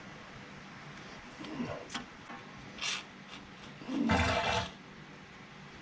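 Gear oil pump sputtering as it pushes a slug of air and oil into the rear differential, a short gurgling burst a little after the middle, with a few light knocks before it. The pump is drawing in air.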